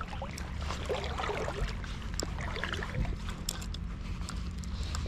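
Steady rush of stream water with scattered light clicks from a spinning reel being cranked while a hooked trout is reeled in.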